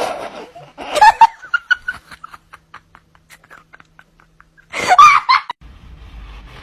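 A person laughing in loud bursts, with short quiet giggles in between.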